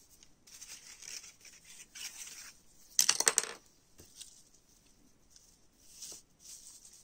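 Satin ribbon rustling as it is pulled off its spool and handled on a tabletop, with a loud crackly burst about three seconds in as a length is drawn out quickly.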